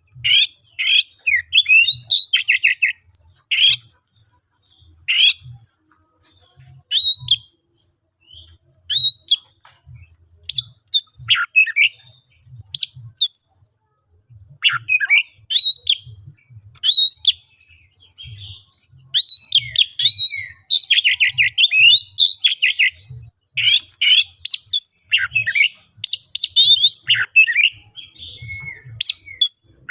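Oriental magpie-robin (kacer) singing hard in a fighting mood: short, varied phrases of whistles, harsh notes and fast trills, one after another with brief pauses. This is the agitated challenge song that other male magpie-robins answer.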